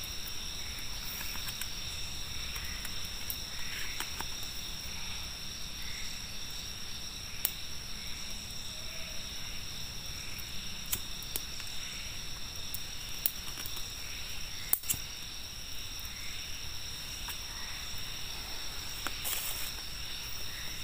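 Forest insects trilling steadily in several high-pitched tones, with a few sharp clicks scattered through, the sharpest about fifteen seconds in.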